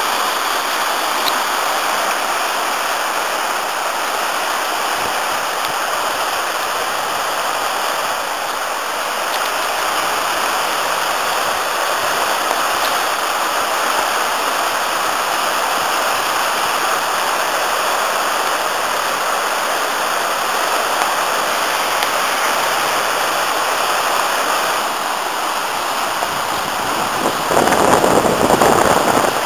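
Rocky river in spate after heavy rain: fast white water rushing over stones in a steady, loud rush. It swells louder and fuller for about two seconds near the end.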